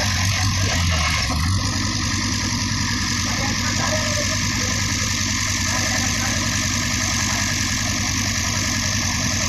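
Heavy diesel engine running steadily at idle, a little louder about a second in.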